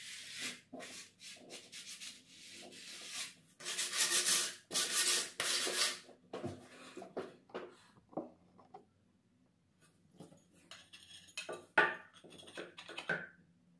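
Sandpaper rubbed by hand along a worn painted wooden handrail, in repeated scratchy strokes: sanding back the old paint before repainting. The strokes are loudest a few seconds in, stop for about two seconds past the middle, then resume with a sharp tap near the end.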